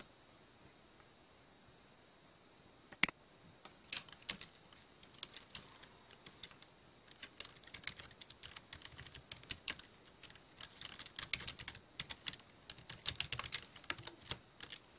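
Typing on a computer keyboard: a single sharp click about three seconds in, then quick, uneven key clicks for most of the rest, growing denser after the first few bursts.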